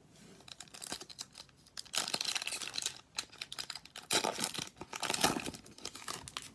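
Foil wrapper of a hockey card pack being torn open and crinkled, in crackling bursts about two seconds in and again around four to five seconds in.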